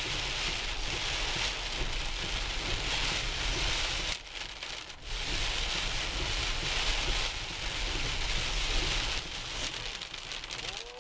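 Heavy rain pelting the car's roof and windshield, heard from inside the cabin as a dense, steady hiss over a low road rumble, dipping briefly about four seconds in.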